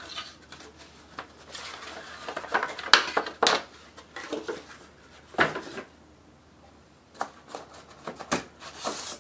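Cardboard packing strips being lifted out of a solar panel box: rustling and scraping of cardboard, with sharp knocks about three seconds in, again about half a second later and at about five and a half seconds, then a run of lighter taps near the end.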